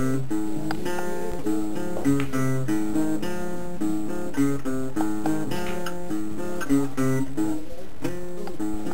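Music on acoustic guitar: a melody of separate notes over lower bass notes, at an even level.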